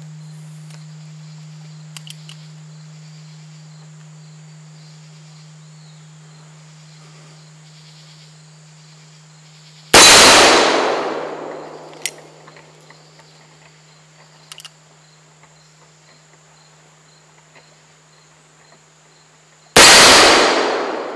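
Two shots from an original Colt 1860 Army .44 cap-and-ball revolver firing black-powder paper cartridges, about ten seconds apart: the first about halfway in, the second near the end. Each is a loud bang that rings on for a second or two as it dies away. About two seconds after the first shot comes a short metallic clang from the swinging steel targets.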